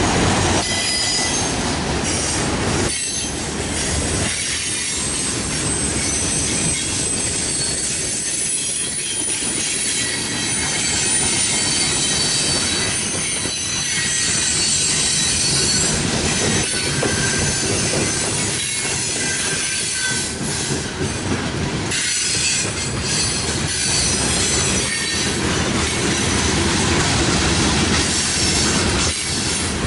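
Freight cars of a Norfolk Southern train rolling steadily past: steel wheels running on the rail with thin high squealing tones over the top and occasional clicks as wheels cross rail joints.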